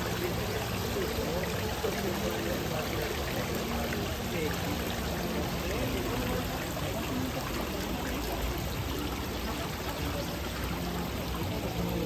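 Water running and splashing steadily, with a murmur of voices behind it.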